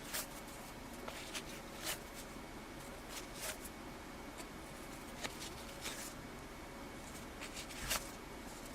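Faint clicks and rustles of cardboard trading cards from a 1984 Topps hockey pack being handled and flipped through one at a time, over a steady hiss.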